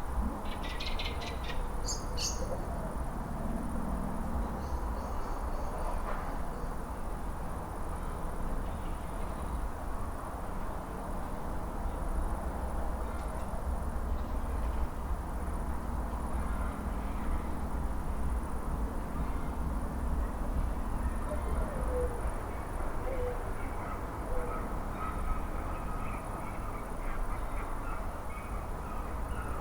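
Suburban outdoor ambience: a steady low rumble of distant traffic throughout. Birds chirp in the first couple of seconds, and three short animal calls come about three-quarters of the way through.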